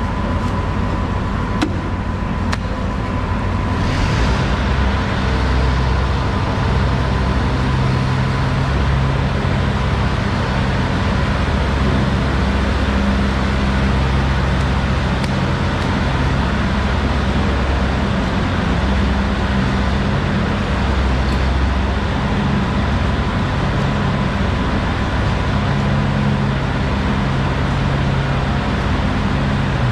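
Steady low mechanical rumble, swelling and easing in level, with a faint steady tone above it and a couple of faint clicks about two seconds in.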